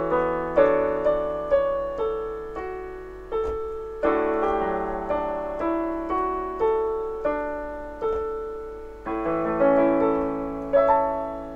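Solo piano piece played on a digital piano: melody notes and chords struck one after another, each dying away, with a final chord near the end left to ring out and fade.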